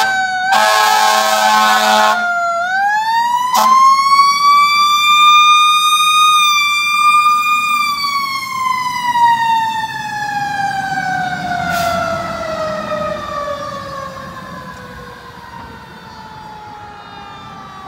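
2020 Rosenbauer Warrior fire engine sounding its air horns for about two seconds, then its siren winds up to a high wail, holds, and slowly winds down, fading as the truck drives away.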